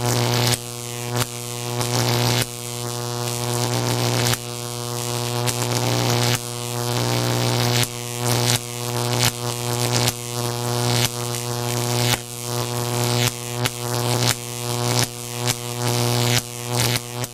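Electric shock sound effect: a loud, steady electrical buzz with repeated crackling zaps, roughly one every half second to two seconds.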